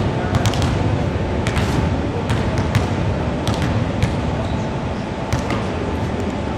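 Basketballs bouncing on a wooden gym floor: irregular sharp knocks, several a second, over the steady low din of a large sports hall.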